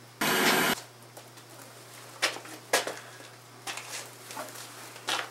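A loud burst of noise just after the start, then scattered sharp knocks and rustling from a person moving about in a small room, over a steady low electrical hum.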